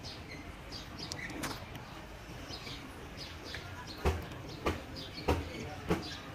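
Small birds chirping, short falling chirps repeated throughout. From about four seconds in come four sharp taps, a little over half a second apart.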